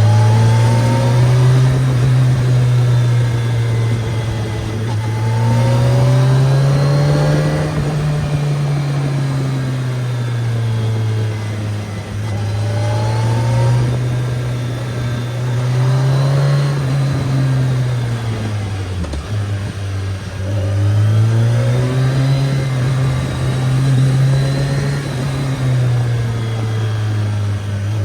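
BMW K1300S motorcycle's inline four-cylinder engine under way on the road, its note climbing as it accelerates and dropping as the throttle eases off, several times over, with steady road and wind noise beneath.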